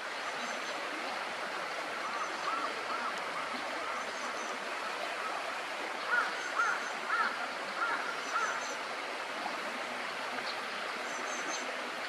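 Steady rush of flowing water, with two runs of short, quick repeated bird calls: one starting about two seconds in, and a louder one in the middle.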